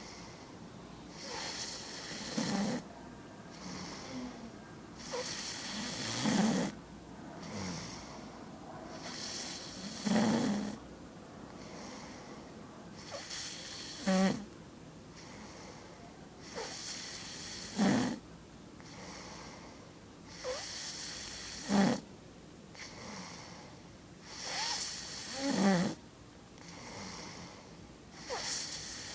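A person snoring in a steady rhythm, about one breath every four seconds. Each breath rises to a loud, low snore at its peak.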